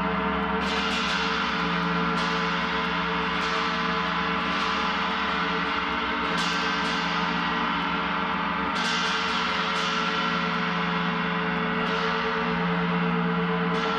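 Gong played continuously: a dense, sustained wash of many overlapping ringing tones, renewed by about ten softer strokes that each bring a fresh shimmer of high overtones, spaced roughly one to two seconds apart.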